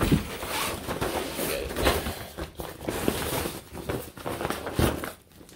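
Rustling and crinkling of a fabric 3D-printer enclosure and its silver reflective lining being handled, with a few soft thumps.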